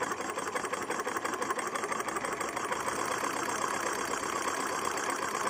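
Small model Stirling hot-air engine kit running steadily on a lighter flame, its flywheel spinning fast. The piston, rods and crank make a rapid, even metal-on-metal clatter; the moving parts are lubricated only with pencil graphite.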